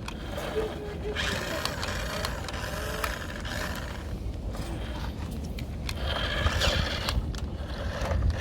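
A toy remote-control dump truck's small electric motor and gearbox running as it drives over rough ground, the whir rising and falling unevenly.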